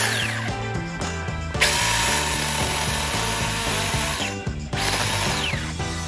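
Cordless mini chainsaw (a Makita-battery-compatible TEETOK) running in bursts with its chain rattling, stopping and starting again a couple of times, over background music with a repeating beat.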